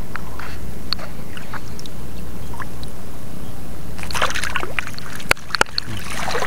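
Shallow seawater sloshing and dripping as a hand lifts a crab out of the water and drops it into a plastic basket, starting about four seconds in, with a few sharp clicks a little after five seconds. A steady low rumble runs underneath.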